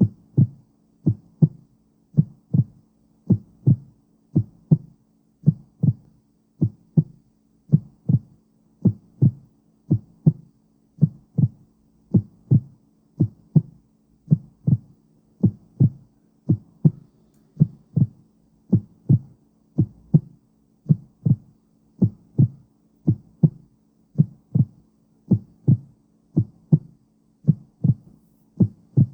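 Recorded human heartbeat: a steady double thump (lub-dub) about once a second, over a faint low hum.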